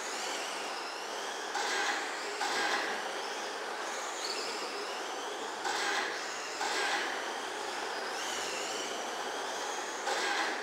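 1/10-scale RC racing trucks lapping a dirt oval: a high-pitched motor whine that rises and falls as the trucks speed up and slow down, with tyre and running noise underneath. Louder swells come several times as trucks pass close by.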